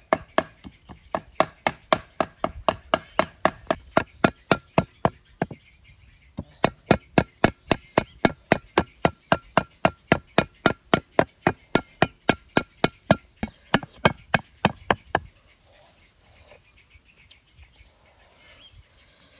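Cleaver mincing small fish on a thick wooden chopping block, in rapid, even strokes about four a second. There is a brief pause about six seconds in, and the chopping stops about fifteen seconds in, leaving faint handling sounds.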